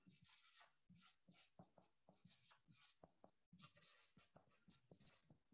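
Faint scratching of a marker writing on a board: a quick series of short strokes.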